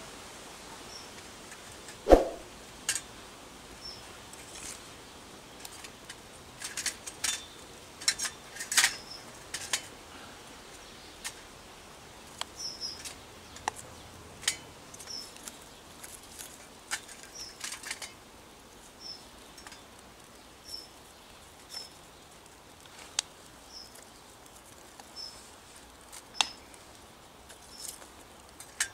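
Small twig fire crackling and snapping in a collapsible stainless steel wood-burning camp stove as sticks are fed in, with irregular sharp clicks and pops and one harder knock about two seconds in. A small bird chirps faintly and repeatedly in the background.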